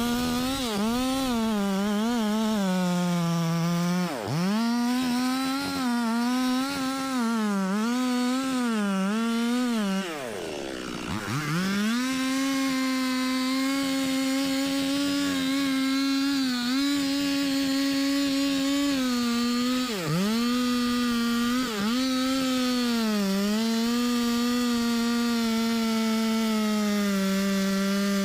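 Two-stroke chainsaw cutting into a teak trunk at high revs, the engine note dipping briefly every few seconds as the throttle is eased. About ten seconds in it drops almost to idle, then revs back up and holds steady in the cut.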